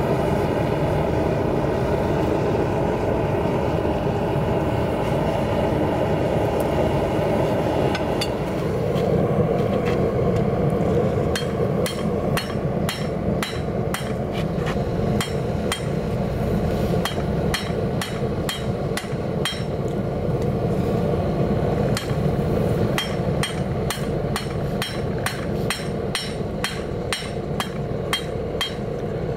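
A hand hammer strikes a red-hot railroad spike held on a steel anvil. The blows start sparse and come quickly through the second half, about three a second. A steady rushing noise runs underneath, consistent with the gas forge's burner.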